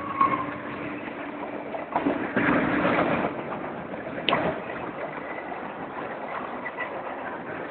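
CSX freight train running past, a steady noisy rumble of the cars with a louder stretch about two to three seconds in and a single sharp click a little after four seconds.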